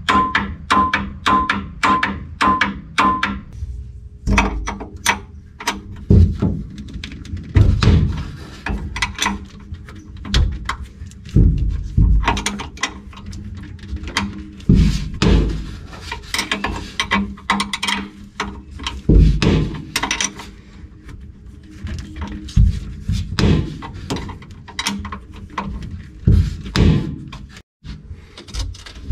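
Hand tools knocking and clunking against a MerCruiser engine while its starter motor is being unbolted: a long run of irregular sharp knocks. Music plays underneath.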